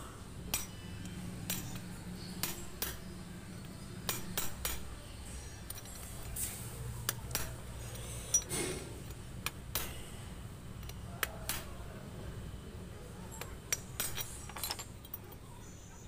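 Light, irregular metallic taps of a hammer on a steel rod set against the bearing inside a top-load washing machine's aluminium drum flange, driving the worn bearing out of its bore. Roughly one tap a second, some coming in quick pairs or threes.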